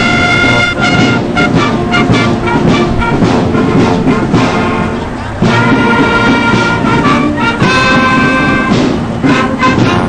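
Brass band music: held horn chords over steady drum beats, easing off briefly about five seconds in before the full band comes back in.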